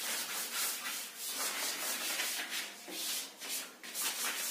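Chalk being wiped off a blackboard, a dry rubbing noise in quick back-and-forth strokes, a few per second.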